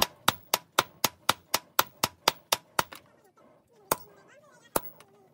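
Hammer blows on a red-hot steel knife blade over a small anvil during forging: a quick, even run of about a dozen strikes at roughly four a second, then two single blows about a second apart.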